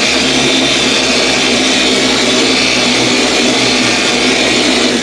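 Dual-action polisher running steadily on its lowest speed, spreading polish on car paint with a foam pad. It is switched off near the end and winds down.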